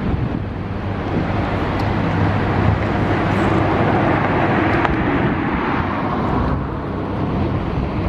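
Wind rushing over the microphone, swelling for a few seconds in the middle and then easing, over a low steady hum.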